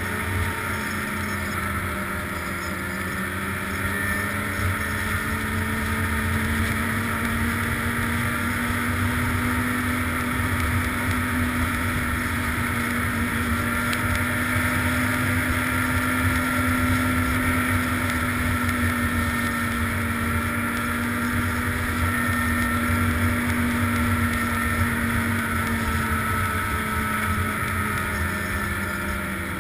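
Snowmobile engine running steadily at trail speed, its pitch rising slightly and easing off near the end, with wind buffeting the microphone.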